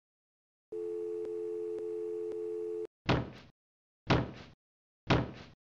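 Synthetic intro sound effects: a steady electronic tone with a faint pulse about twice a second, cutting off abruptly after about two seconds. It is followed by three heavy hits about a second apart, each a sharp double impact that dies away quickly and is louder than the tone.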